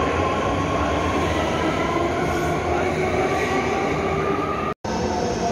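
BART train running out of an underground station, a steady rumble of wheels on rail with a high steady whine over it. The sound cuts out for an instant near the end, then a train's rumble picks up again.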